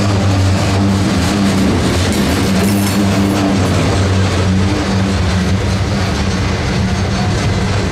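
Train running close by, a diesel locomotive's engine giving a loud, steady low drone over rail noise.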